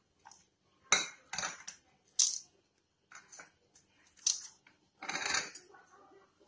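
Chopped dry fruits and raisins tipped from small bowls into a white ceramic bowl: several sharp clinks of dish against dish, then, about five seconds in, a short rattle of the pieces pouring in.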